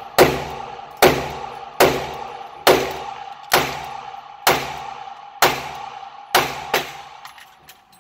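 SIG Sauer P365 pistol fired nine times at a steady pace, about one shot a second, each crack ringing off the walls of an indoor range; the last two come quicker, and the string ends with the magazine run dry and the slide locked back.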